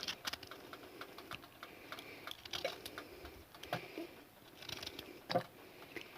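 Faint, irregular light taps and clicks of kitchen utensils handling freshly cut onion and lemon pieces, with one louder tap near the end.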